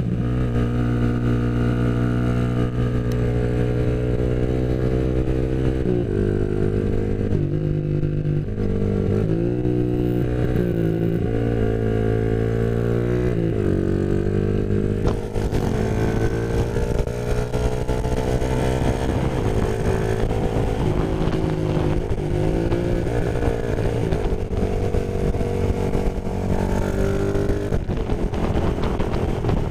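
Motorcycle engine heard from the rider's onboard camera while riding, its pitch holding steady for stretches and stepping down and back up several times with throttle and gear changes. From about halfway the engine note climbs gradually and a hiss joins it.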